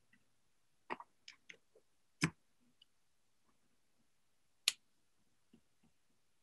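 Several scattered, sharp computer mouse clicks. The loudest comes about two seconds in and another strong one at about four and a half seconds, with a few fainter ticks between.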